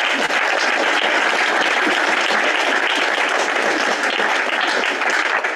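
Audience applauding, a dense and even clapping that starts to break into separate claps near the end.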